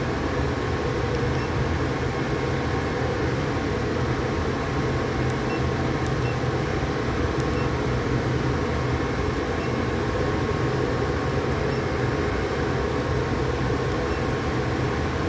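CNC cutting machine running, a steady mechanical hum with hiss and a thin steady whine, unchanged throughout.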